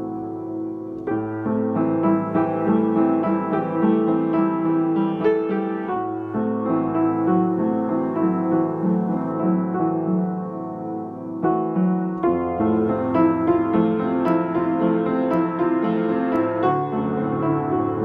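Piano music: a pop/classical piece of sustained chords over a repeating moving figure, with the harmony shifting to a new chord about a second in, again around six seconds and again around twelve seconds.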